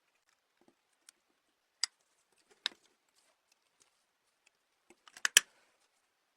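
Scattered small, sharp clicks and taps of hard small parts being handled during work on a model car. A quick cluster of the loudest clicks comes a little over five seconds in.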